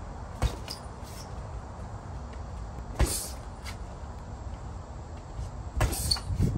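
Jabs landing on a heavy punching bag as the boxer steps in and pushes back out: a sharp thud about half a second in, the loudest one near three seconds, and a quick cluster of thuds and scuffs near the end.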